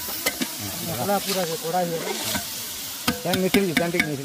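Meat curry sizzling in a large aluminium pot as a metal ladle stirs it, with sharp clicks of the ladle against the pot.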